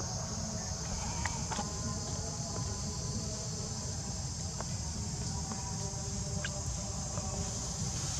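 Steady high-pitched drone of insects, unbroken throughout, over a continuous low rumble, with a few faint scattered clicks.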